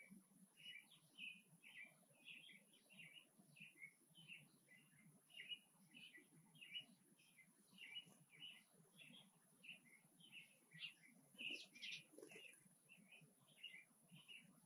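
Small birds chirping: a steady run of short, high chirps, about three or four a second, with a few louder chirps near the end.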